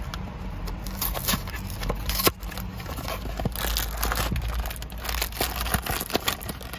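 Paperboard cookie box being pried open by hand: card flaps and paper crinkling and tearing in a string of crackles, with one louder snap a little over two seconds in.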